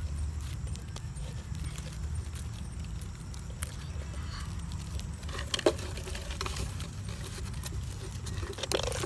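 A twig scraping and prodding inside a tarantula burrow in dry soil: scattered light clicks and scratches, with a sharper click about five and a half seconds in, over a steady low rumble.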